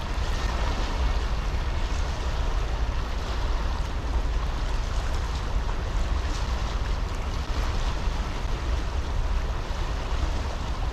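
Steady rush of a shallow, rocky creek flowing over riffles, with a constant low rumble underneath.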